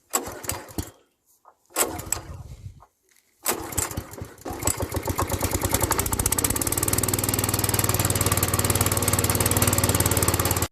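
Honda GX300 single-cylinder four-stroke petrol engine on a mini power tiller being pull-started: two short turn-overs, then it catches about three and a half seconds in and settles into a steady run.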